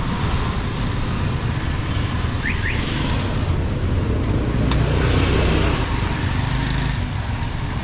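Busy street traffic: engines of motorcycles and auto-rickshaws running close by in a steady low rumble that swells a little about five seconds in.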